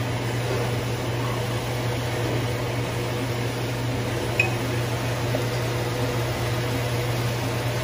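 Steady low mechanical hum with an even background hiss, and one faint short click about four and a half seconds in.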